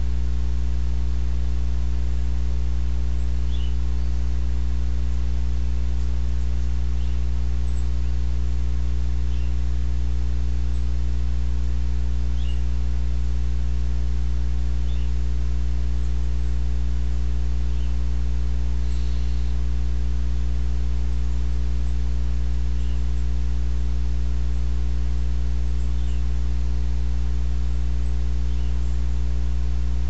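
Steady electrical mains hum with a stack of overtones, the loudest sound throughout, picked up in a webcam's audio. Faint brief high chirps or ticks come every few seconds.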